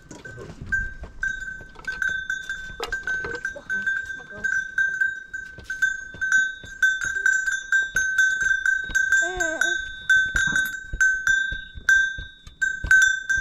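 A small metal bell ringing over and over at a single pitch, struck several times a second, with a short wavering call about nine seconds in.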